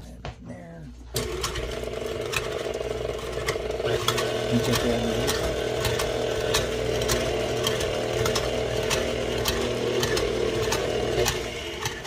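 KitchenAid tilt-head stand mixer motor running, beating dough in its steel bowl, with a clatter of short clicks from the beater. It starts about a second in and shuts off about a second before the end.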